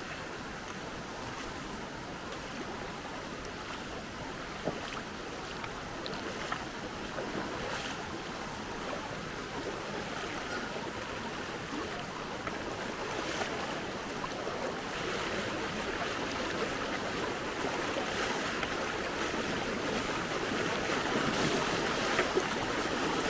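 Shallow floodwater rushing and rippling over a stony bed: a steady wash of water that grows gradually louder toward the end.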